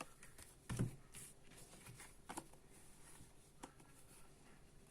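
Tarot cards being handled and laid on a table: a few soft taps and slides of card, with a dull thud about a second in.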